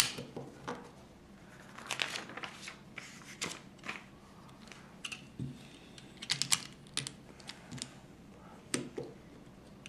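Plastic Lego bricks clicking as they are handled and pressed together by hand: irregular clicks and small rattles every second or so.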